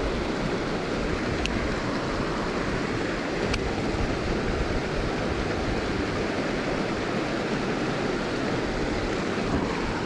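Steady rushing of creek water running over a rocky riffle.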